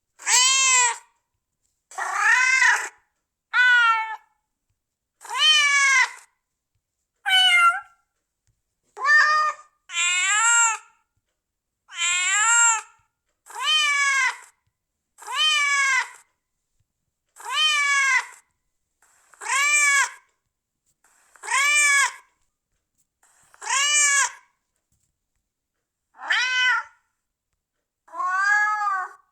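A domestic cat meowing again and again, about one meow every two seconds. Each call rises and then falls in pitch, with dead silence between calls.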